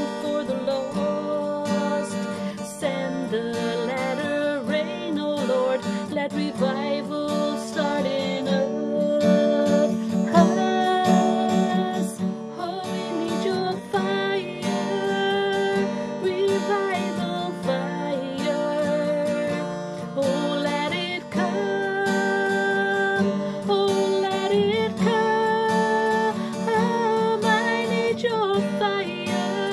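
A woman singing a worship song solo while strumming an acoustic guitar.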